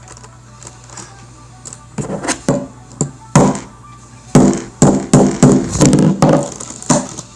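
Small hammer tapping and knocking on a plastic Rubik's Cube to pry a centre piece loose. A few sharp knocks come about two to three seconds in, then a quicker run of a dozen or so strikes in the second half.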